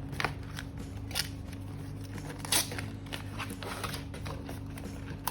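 Rode Wireless Go product box being opened and handled: scattered light clicks and rustles of cardboard and packaging, the loudest about two and a half seconds in, over a steady low hum.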